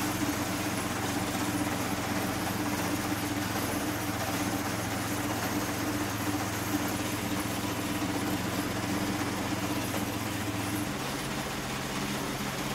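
Steady drone of an engine running, with a low hum that shifts slightly near the end.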